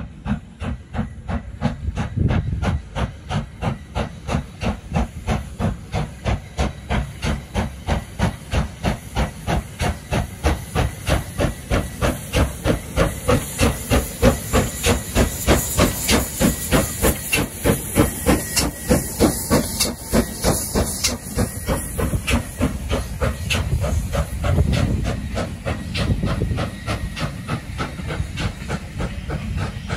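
Steam locomotive working hard past the listener, its exhaust chuffing in even beats, about two to three a second, growing louder as it comes close. Near the end the chuffs fade into a steadier rumble as the coaches roll by.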